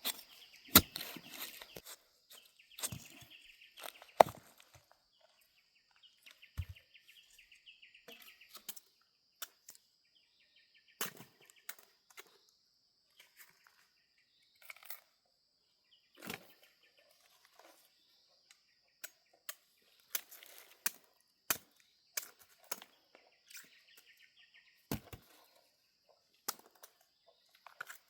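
Irregular sharp knocks and snaps, a second or two apart, over a steady high insect drone and patches of bird chirping.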